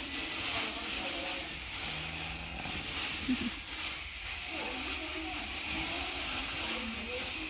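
Equine dental float rasping a horse's teeth, a rhythmic scraping hiss that swells about once a second with each filing stroke.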